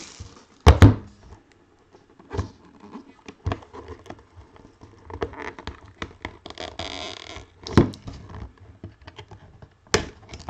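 Cardboard collectible box handled on a tabletop and opened: a pair of sharp knocks about a second in, then scattered taps and small ticks, a brief scraping sound about two-thirds in, and another knock near the end.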